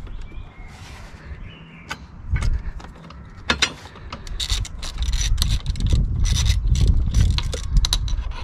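Ratchet clicking as bolts are run in on a motorcycle engine-guard crosspiece, left snug rather than tightened. A few separate knocks of metal come first, then a long run of quick clicks from about halfway.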